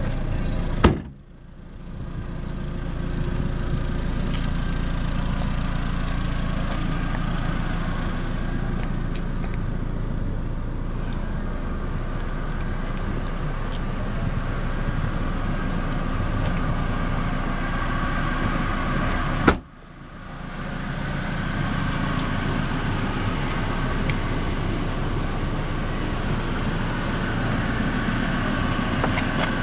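Small four-cylinder car engine (the Neon's 2.0 L) idling steadily. Two sharp slams, about a second in and again near twenty seconds in, as the trunk lid and a door are shut.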